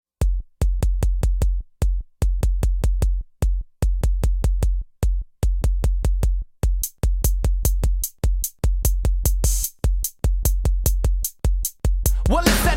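Music: a drum-machine intro of crisp, rapid ticks over deep bass pulses in a steady rhythm, with the fuller song coming in near the end.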